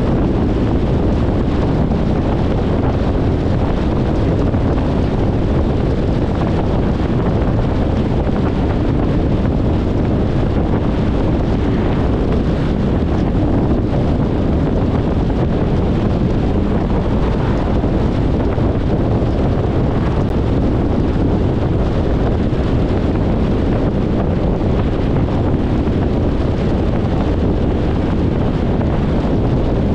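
Steady road noise of a car on the move: a dense, even rush of tyre and wind noise, deepest at the low end, with no distinct events.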